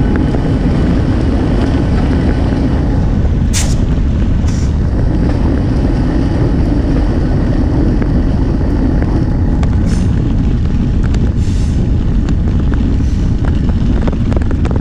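Diesel-hauled passenger train rolling along the track beside the trail, a steady low rumble of its wheels and locomotive, heard from a bicycle riding alongside at about 18 mph. A few short sharp clicks or rattles come about three and a half, four and a half and ten seconds in.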